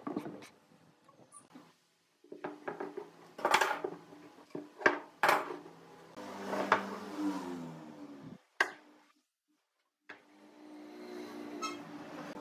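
Scattered sharp knocks and clicks of metal bar clamps and wooden workpieces being handled and set down on a wooden workbench.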